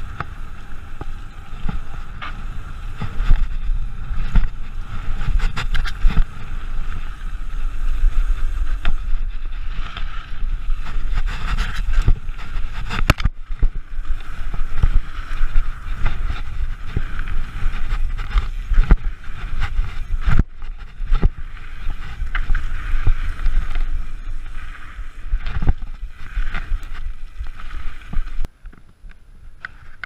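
Mountain bike ridden over dirt jumps, heard from a rider-mounted action camera: heavy wind buffeting on the microphone and tyres rolling on dirt, broken by many sharp knocks and rattles from the bike. The noise drops off abruptly near the end.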